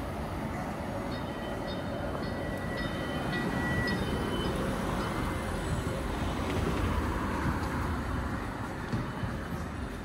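A passing rail train: a steady rumble, with thin high-pitched squeals between about one and four and a half seconds in, swelling again around six to eight seconds.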